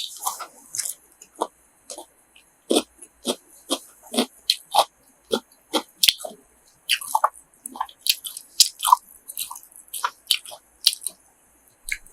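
A person chewing grilled pork offal close to the microphone: a quick, irregular run of short chewing clicks and smacks, about two or three a second.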